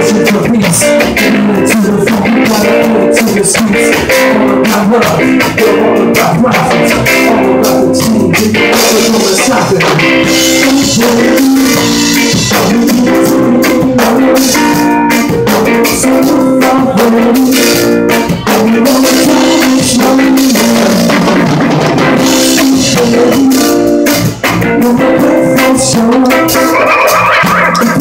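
Live band playing loudly: electric guitar and drum kit, with a singer at the microphone.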